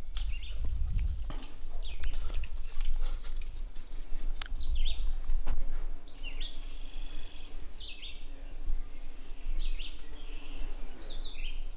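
Wild songbirds chirping and calling, many short notes scattered throughout, over a steady low rumble.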